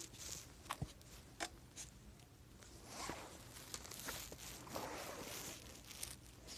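Faint crunching footsteps in snow, with scattered clicks and two longer crunches about three and five seconds in.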